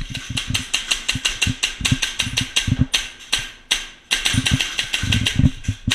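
Airsoft gun firing on full auto: rapid mechanical clacking shots, about ten a second, in long bursts with a brief pause about four seconds in.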